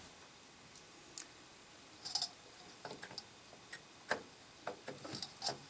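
Faint, irregular small clicks and taps of a DDR3 RAM module being handled and lined up in a motherboard DIMM slot, about ten in all, the sharpest about four seconds in.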